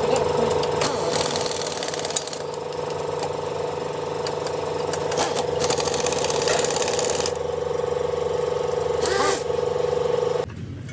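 Diesel engine running at a steady speed, with several stretches of hissing over it; it cuts off suddenly near the end.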